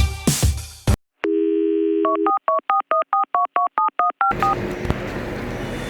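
Electronic music cuts off, then a telephone dial tone sounds for about a second, followed by about a dozen quick touch-tone keypad beeps as a number is dialed. Steady background noise comes in near the end.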